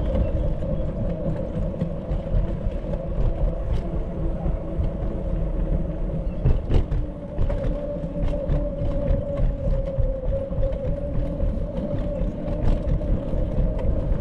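Riding noise on a bicycle: a steady low rumble of wind and road with a constant mid-pitched hum and scattered light clicks.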